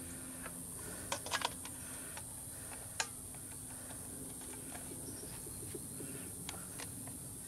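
A few light clicks and taps as an A/C refrigerant can is threaded into the trigger dispenser of a recharge hose and gauge. There is a quick cluster about a second in, a single click about three seconds in and a fainter one near the end, over a quiet steady background hum.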